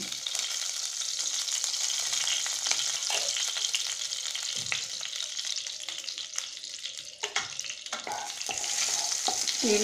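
Mustard oil sizzling and crackling steadily in a kadai as it heats, with a metal spoon scraping and knocking against the pan now and then in the second half as the oil is spread around.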